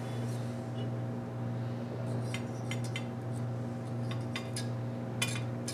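Light metallic clinks and scrapes of a feeler gauge worked under a precision ground straight edge laid across a Ford 351M engine block's deck, checking it for flatness. The clinks come in scattered clusters from about two seconds in, over a steady low hum.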